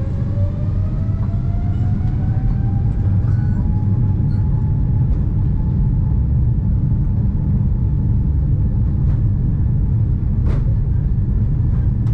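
Jet engines of a Boeing 747-8 heard inside the cabin, spooling up. Their whine rises in pitch over the first few seconds and then holds steady over a loud, steady rumble, as at takeoff thrust. A single sharp click about ten seconds in.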